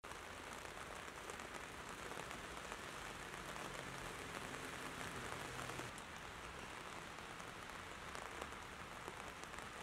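Quiet, steady rain falling on pavement: an even hiss, with a faint low hum from about three to six seconds in.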